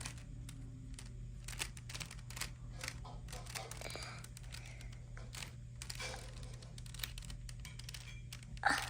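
Rubik's Cube layers being turned by hand: a quick, irregular run of plastic clicks and clacks, over a steady low hum.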